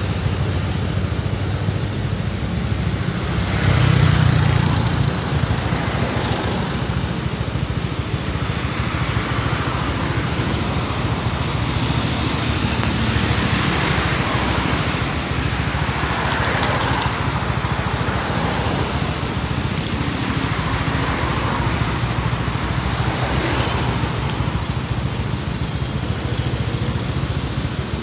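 Road traffic noise: a steady rumble of motor vehicles, swelling several times as vehicles pass.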